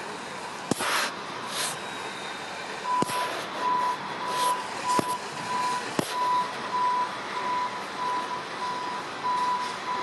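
A truck's reversing alarm beeping at an even pace, a little under two beeps a second, starting about three seconds in, likely a tow truck backing up to winch the car out. Several sharp knocks or clanks sound over a steady outdoor background noise.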